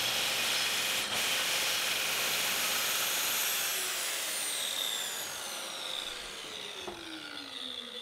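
Festool track saw running on its guide rail as it cuts a chamfer along the edge of a pine tabletop. About halfway through, the motor's whine falls steadily in pitch as the saw winds down.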